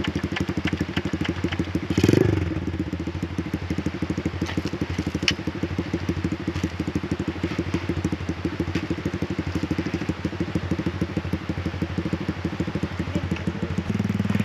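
Off-road motorcycle engine idling steadily with a fast, even beat, with a brief louder burst about two seconds in and a few sharp clicks scattered through.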